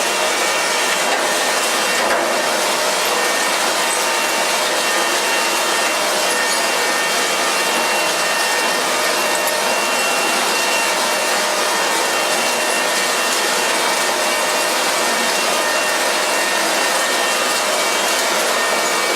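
Satrind electric fan running steadily: an even rushing whoosh of moving air with a faint motor hum, holding the same level throughout.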